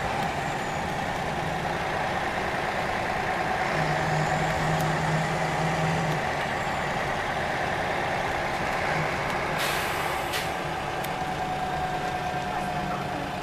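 Scania OmniLink CL94UB city bus heard from inside the passenger cabin while driving: steady engine and road noise with a low hum that comes and goes. About ten seconds in there is a short hiss of released air from the bus's pneumatic system.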